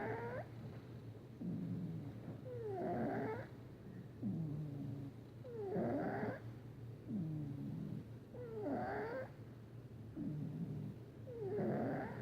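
Domestic cat snoring in its sleep, breath after breath, about once every three seconds. Each breath has a low part followed by a louder, higher one.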